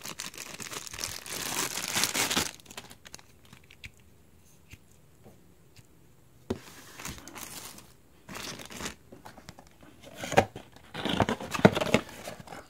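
Clear plastic wrapping crinkling and rustling as it is pulled off a small microphone tripod stand, loudest over the first two and a half seconds. Quieter handling noise follows, with a few sharp knocks as the tripod is handled and set down.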